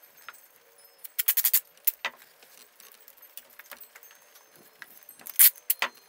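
Gaffer's tape pulled off the roll and torn into strips, in short rasping rips: a quick run of them about a second in, another at two seconds, and the loudest near the end. Quieter handling noises of the twigs and bird feeder come between the rips.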